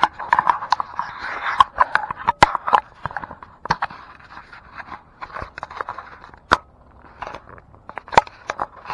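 Close handling noise of a camera being set against a tree trunk: scraping and rustling against the bark, with many sharp clicks and knocks, busiest in the first few seconds.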